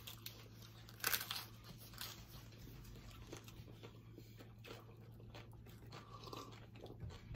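Close-up crunching and chewing of a crisp hard taco shell: one louder crunch about a second in, then quieter, scattered chewing crunches, over a steady low hum.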